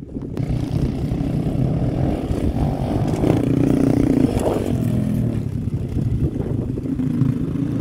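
Small single-cylinder four-stroke pitbike engines revving, the pitch rising and falling as a rider hits a jump about four seconds in.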